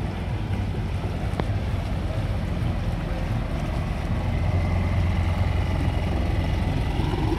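Small motorboat's engine running steadily at low speed, a constant low drone.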